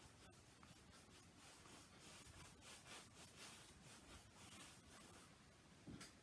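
Faint, repeated swishing of a paintbrush stroking back and forth across a stretched canvas, about two or three strokes a second, blending acrylic paint.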